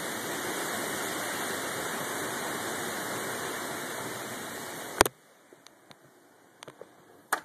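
Steady rush of tropical-storm wind and rain through the trees. About five seconds in, a sharp click and the sound drops to near quiet, with only a few faint ticks after.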